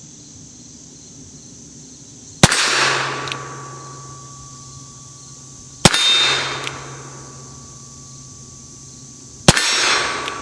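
Three single shots from a .455 Webley MK VI revolver, about three and a half seconds apart, each a sharp crack with a long echo and a faint steady ringing after it. The gun fires .455 Webley cartridges in a cylinder shaved for .45 ACP, which leaves too much headspace: the shooter says a cartridge took two hammer hits to go off.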